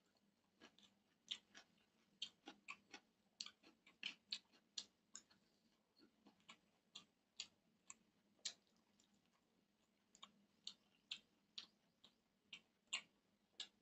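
Close-up eating sounds: wet chewing and lip-smacking clicks, several a second at an uneven pace, as a mouthful of rice and curry is chewed with the mouth open.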